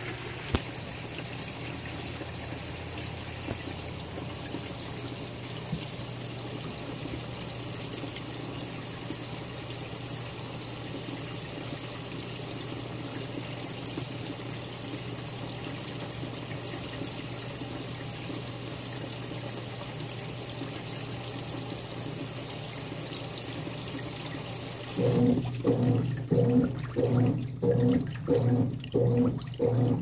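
Consul 16 kg top-load washing machine filling, water rushing steadily into the tub. About 25 seconds in the fill stops and the agitator starts, its motor humming in quick, even back-and-forth strokes.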